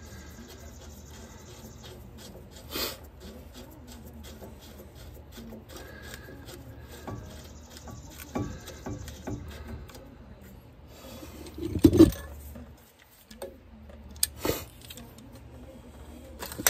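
Rubbing and scraping of hand tools against a truck's front disc-brake caliper, with scattered metal clicks and one loud clunk about twelve seconds in.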